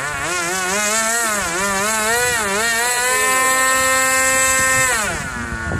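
Small engine of a radio-controlled model aircraft buzzing at high revs, its pitch rising and falling several times as the throttle moves. It then holds steady and drops away about five seconds in.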